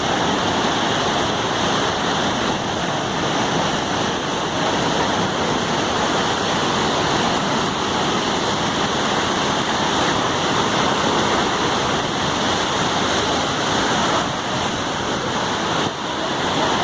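Large waterfall: the steady rush of falling water, with a brief dip in level near the end.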